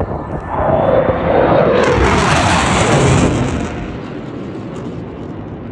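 Jet aircraft flying past overhead: its roar swells about half a second in, stays loud for a couple of seconds with a pitch that drops as it passes, and dies away about four seconds in.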